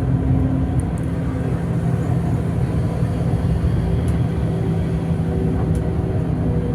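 Bus engine and road noise droning steadily, heard from inside the moving bus.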